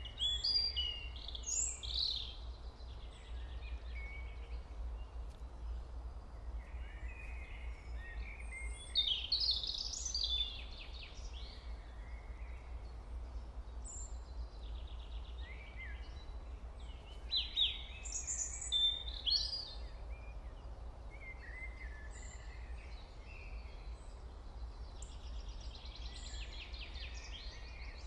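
Birds chirping and trilling in short, varied phrases every few seconds, over a steady low hum.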